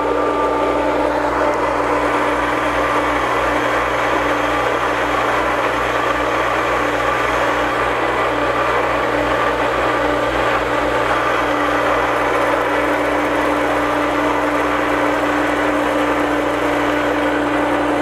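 Electric irrigation-type water pump running steadily with a constant hum, held on by its pressure switch while it is being primed, with water and air rushing through it.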